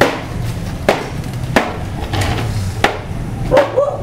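Sharp, irregular strikes on bamboo, about one a second, as bamboo slats are chopped and trimmed by hand.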